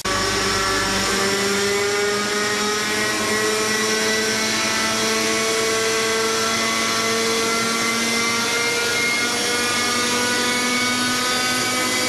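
Radio-controlled model helicopter's small engine and rotor running steadily at hover power, its pitch creeping slowly upward as it spools up and lifts off.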